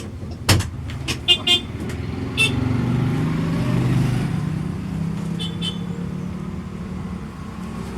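Bus engine pulling uphill under load, its low note rising slightly during the first few seconds. A sharp knock comes about half a second in, and a few short high-pitched sounds follow over the next couple of seconds and once more near the middle.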